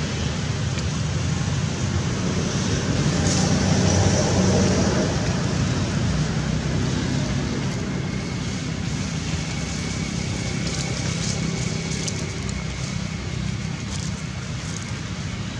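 Steady low rumble and hiss of outdoor background noise, with a faint thin high tone coming in about halfway through.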